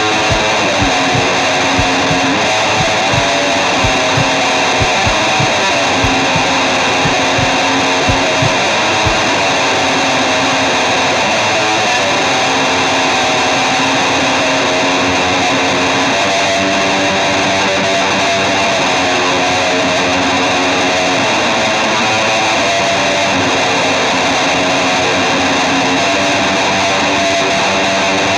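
Loud guitar music. A low, regular beat runs for about the first nine seconds, then drops out, leaving held, sustained chords.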